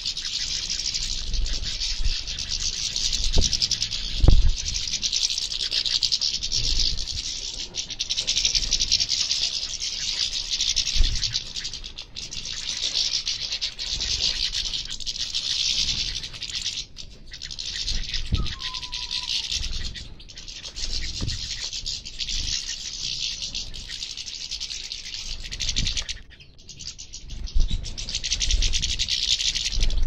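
Flock of finches, mostly European goldfinches, twittering and singing together in a dense, unbroken high chatter. Occasional low thumps and flutters come through underneath, and a single falling call sounds a little after halfway.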